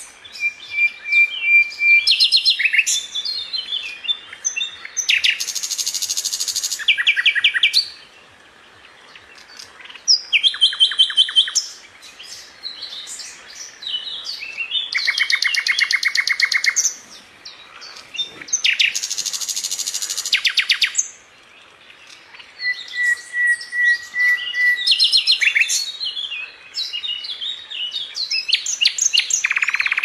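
A nightingale singing in separate phrases of rapid repeated notes and fast rattling trills, with short pauses between them. A long, even whistled note comes near the start and again about two-thirds of the way through.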